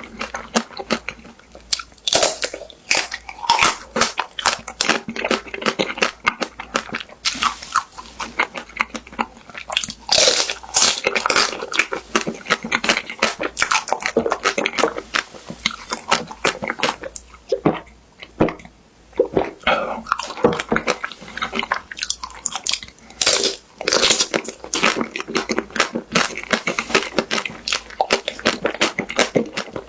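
Close-miked eating of a crispy-shelled ice cream bar: the hard coating cracks and crackles under bites, with wet chewing in between. There is a short lull a little past the middle.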